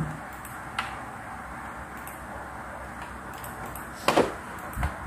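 Plastic clicks and a short scrape from a cable plug being handled and fitted at the back of an Epson L121 inkjet printer: one click about a second in, a louder scrape about four seconds in, and another click just after it.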